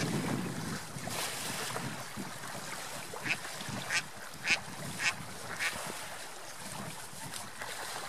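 Mallard ducks quacking, about five short quacks between three and six seconds in, over steady wind and lapping water.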